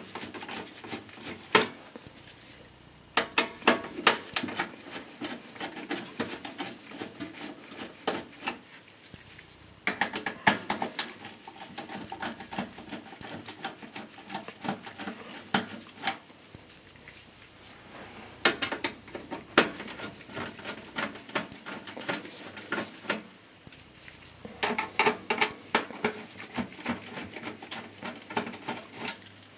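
Phillips screwdriver backing the motherboard screws out of a steel PC case, heard as several bunches of small metallic clicks and clinks with quieter handling between them.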